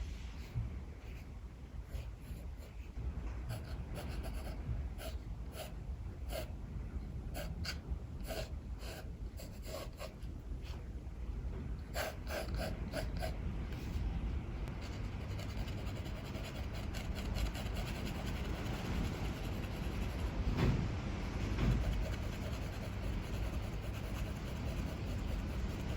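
Sketching strokes scratching on paper: many short quick strokes through the first half, then steadier continuous rubbing strokes as if shading. Under them a low steady rumble of strong wind.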